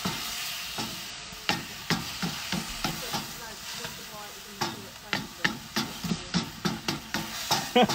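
Chicken stir-fry sizzling in a wok with its freshly added soy, vinegar and hoisin sauce, as a wooden spoon stirs and scrapes through it, with irregular knocks and scrapes of the spoon against the wok.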